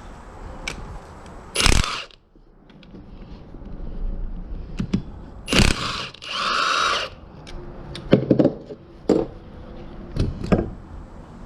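Hand tools working on a transmission's metal case: sharp clanks and knocks, with a noisy, tool-like burst lasting about a second near the middle.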